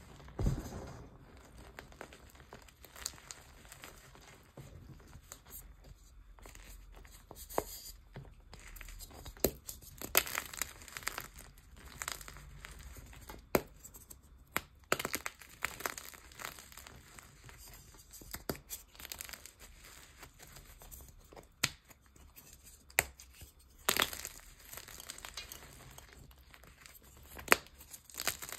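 Blocks of gym chalk crushed and broken by hand in loose cornstarch: irregular crunching and crumbling, with sharp snaps now and then as pieces break.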